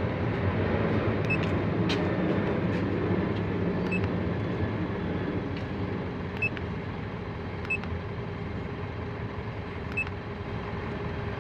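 Mitsubishi Montero engine idling steadily, with faint short high beeps every couple of seconds.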